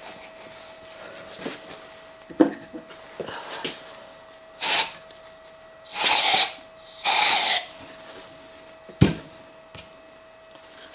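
Three short hisses of an aerosol spray can fired through its straw nozzle in quick succession, spraying cleaner to flush chips out of a lathe quick-change tool post. A single knock follows about two seconds later, over a faint steady hum.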